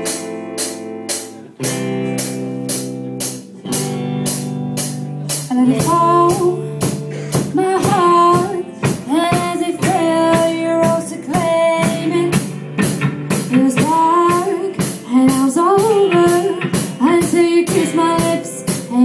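Pop song backing track with sustained chords over a steady drum beat; a woman's singing voice comes in over it about six seconds in.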